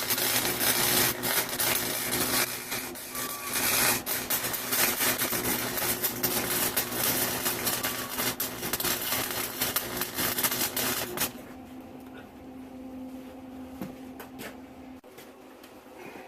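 Wire-feed (MIG) welder arc crackling and sputtering steadily, then stopping about eleven seconds in, leaving a quieter steady hum.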